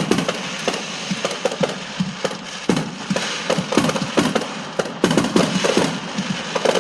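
Many fireworks and firecrackers going off together: a dense, irregular string of sharp bangs and cracks.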